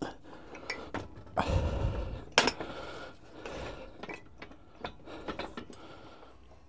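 Metal clinks and knocks as a cast David Brown tractor dual clutch pressure plate with its release fingers is shifted and turned on a steel hydraulic press bed. A rough scrape comes about one and a half seconds in, then a sharp clank, the loudest sound, just after two seconds, followed by lighter clicks.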